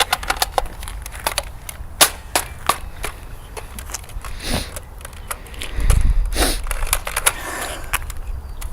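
Scattered sharp clicks and knocks from around an airsoft M16 rifle, thickest in the first few seconds, with a few short bursts of rustling noise later.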